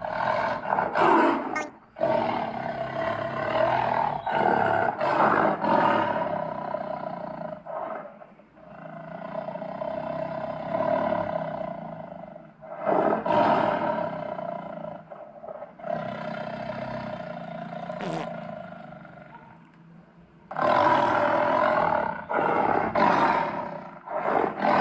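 Recorded tiger roars and growls played back in a series of long, rough calls, with short breaks between them.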